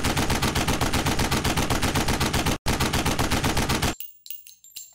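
Rapid automatic gunfire, about ten shots a second, broken by a short pause a little after two and a half seconds and stopping about four seconds in. A few faint clinks follow.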